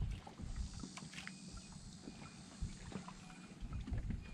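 Small waves lapping against a plastic fishing kayak's hull, with a low steady rumble and a few light knocks.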